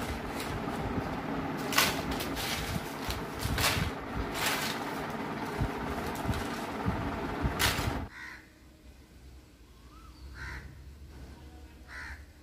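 Plastic sheeting crinkling and brittle dried rice papads crackling and rustling as they are gathered up and piled onto a steel plate, with scattered clicks. About eight seconds in it stops sharply, leaving a quiet background with a few faint short calls.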